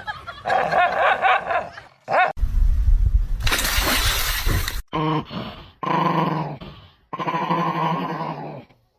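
A dog vocalising in several short stretches, with a loud rough burst of noise about a third of the way in.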